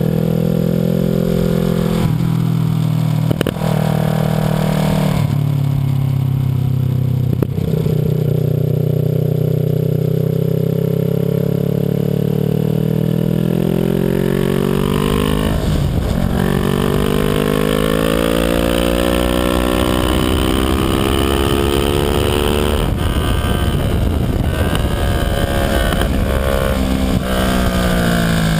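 Kawasaki Ninja 650R's parallel-twin engine at track speed, heard from close by at the rear of the bike: its pitch climbs and falls through corners and straights, broken by several quick gear shifts.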